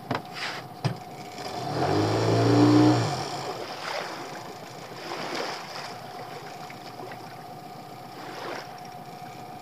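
Spinning reel being wound in fast as a lure is retrieved. Its gears give a whirring buzz that swells and fades about two to three seconds in, after two sharp clicks at the start, over a steady faint hum.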